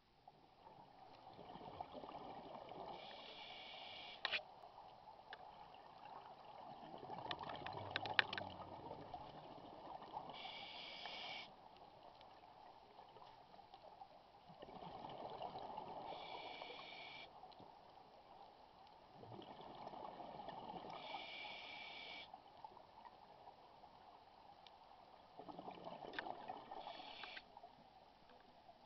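Scuba regulator breathing heard underwater: a short hiss on each inhale and a gush of exhaled bubbles, repeating in a slow cycle about every five to six seconds, with a few sharp clicks.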